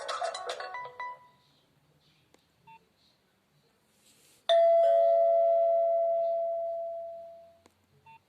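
A Nokia 2760 mobile phone's speaker playing a single bell-like chime tone about halfway through, one strike that rings out and fades away over about three seconds. Before it, a busy polyphonic ringtone melody breaks off about a second in, and two short faint beeps come in the quiet.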